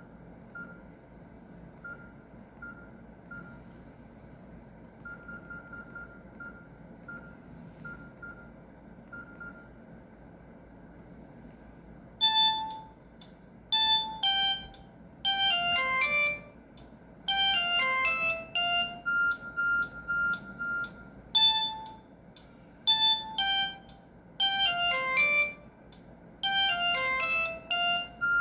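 Samsung GT-E1151 mobile phone playing a ringtone melody through its small loudspeaker, beginning about twelve seconds in and repeating its phrase. Before it come faint short beeps, like keypad tones.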